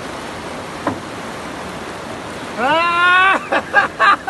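Fast river water rushing and churning, with a brief knock about a second in. Near the end a man lets out a long rising shout, then a few short excited calls.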